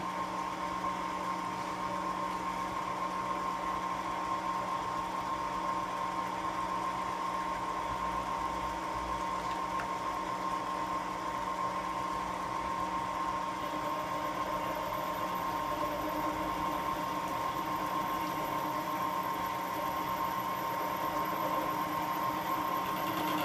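Vertical milling machine running steadily, its face-mill cutter working a long metal workpiece under coolant: an even mechanical hum with a constant high whine.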